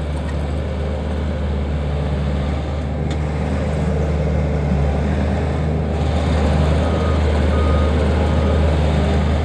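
2017 Bobcat T550 skid steer loader's diesel engine running steadily, growing a little louder toward the end.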